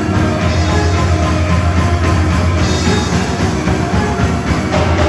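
Background music with a steady beat, heavy bass and drums.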